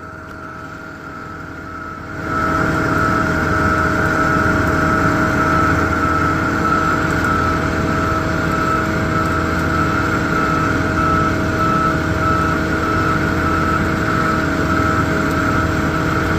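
Vehicle engine held at steady high revs under load, with a constant whine on top. It comes in with a sudden jump in loudness about two seconds in.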